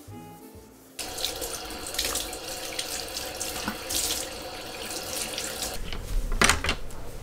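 Water running from a tap into a sink, starting about a second in and easing off shortly before the end, with a short louder burst of noise near the end.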